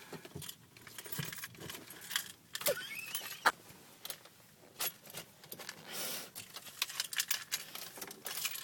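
Light metallic jingling and irregular clicks inside a car cabin, scattered throughout, with a brief rising squeak about three seconds in.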